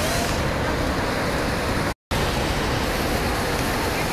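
Steady roar of floodwater pouring over the overflowing Sardar Sarovar Dam's spillway and crashing into the spray below. The recording drops out for a split second about two seconds in.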